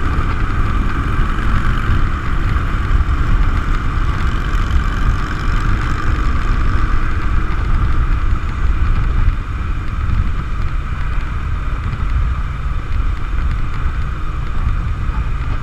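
Harley-Davidson V-twin motorcycle cruising steadily at freeway speed: a low engine rumble mixed with wind buffeting on a handlebar-mounted microphone.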